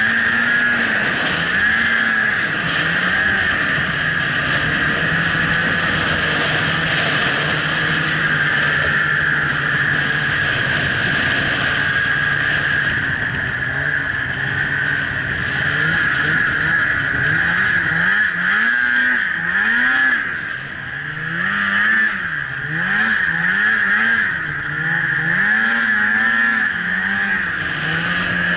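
Snowmobile engine running under way, its pitch rising and falling as the throttle is opened and eased. It holds steady for several seconds about midway, then rises and falls in quick succession in the last third, dipping briefly in loudness around two-thirds through.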